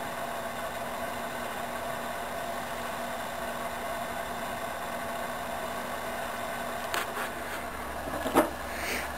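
A steady mechanical hum, with a couple of light knocks near the end.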